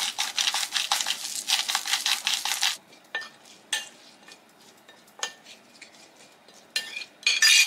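Salt grinder being twisted over a plate, a rapid run of gritty grinding clicks for roughly the first three seconds. Then a fork tosses salad on a china plate, with scattered light clinks and scrapes that grow louder near the end.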